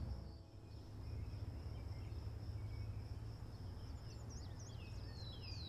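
Outdoor ambience: a steady high insect buzz over a low rumble. From about four seconds in, a run of short falling chirps starts and quickens toward the end.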